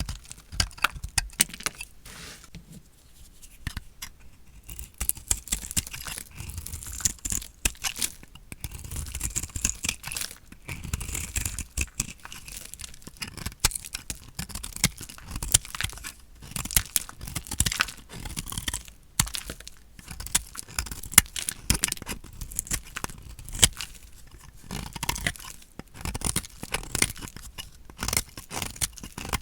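A knife cutting through dry, painted soap: dense, crisp crackling and crunching as the blade breaks through the brittle bar, with a short quieter pause a few seconds in.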